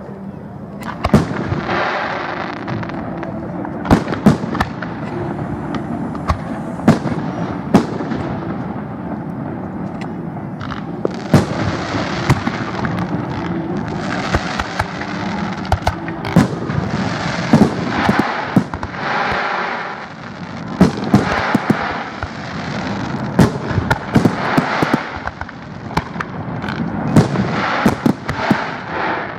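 Aerial fireworks shells bursting in the sky, a rapid irregular series of sharp bangs, often several close together, over a continuous noisy wash of sound between the bursts.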